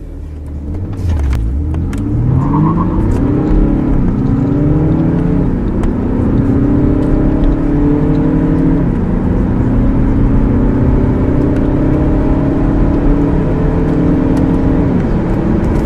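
Car engine heard from inside the cabin, accelerating hard from a standstill through the gears: the pitch climbs steadily, then drops sharply at each of about four upshifts, each gear lasting longer than the one before.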